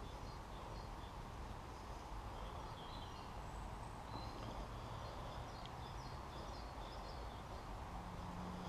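Small birds chirping and calling now and then over a steady low outdoor background rumble.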